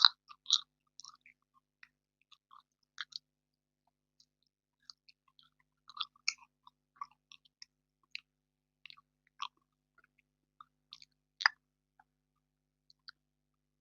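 Close-miked chewing of soft marshmallow candy, with irregular short wet smacks and clicks of the mouth. The loudest come right at the start, just after half a second in, and about two thirds of the way through.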